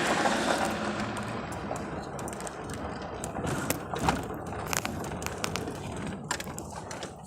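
Road and engine noise inside the cab of a moving four-wheel-drive truck, a steady rumble with many sharp clicks and rattles scattered through it.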